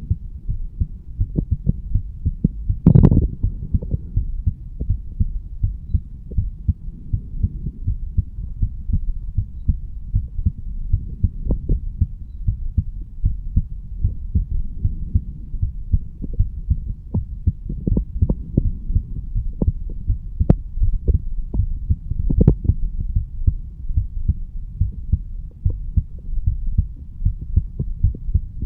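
A man's heartbeat recorded over the mitral (bicuspid) valve area: a steady run of low, muffled beats. A louder thump about three seconds in.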